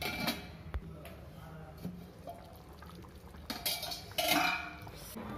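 Metal lid and pan clinking and knocking over a kadai of simmering fish curry, with the loudest clattering about three and a half to four and a half seconds in.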